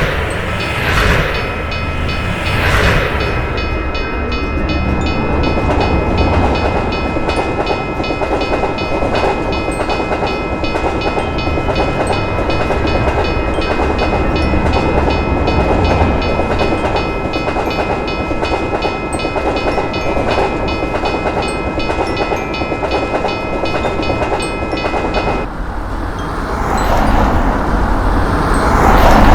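Railroad crossing bell ringing rapidly and evenly while a train runs past with a steady rumble. The bell stops near the end as the train noise swells.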